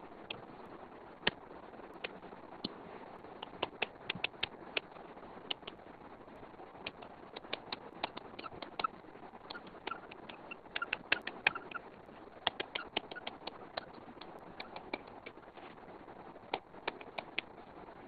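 Stylus tip tapping and clicking on a tablet's glass screen during handwriting: irregular sharp taps, several a second in bunches, densest in the middle, over a faint steady hiss.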